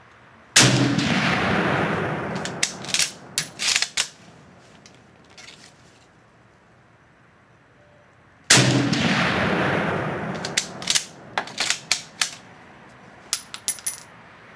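Two shots from a Mosin-Nagant M44 bolt-action carbine in 7.62x54R, about eight seconds apart. Each crack rings out for a couple of seconds and is followed by a quick run of sharp metallic clacks as the bolt is worked to eject the case and chamber the next round.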